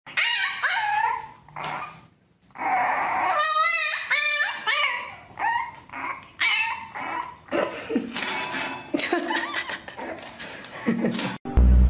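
French bulldog puppy whining and yipping in a string of short, high calls, some of them wavering, with brief pauses between. Music cuts in near the end.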